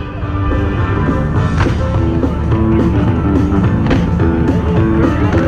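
Loud rock music with a steady beat, the kind played as the soundtrack of a pyromusical fireworks show.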